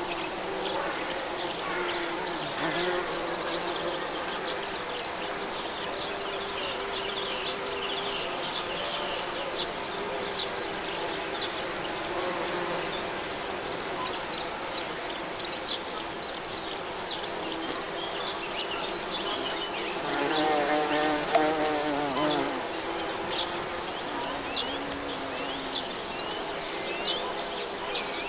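Bumblebees buzzing as they forage from flower to flower: a steady low hum that swells louder for about two seconds two-thirds of the way in.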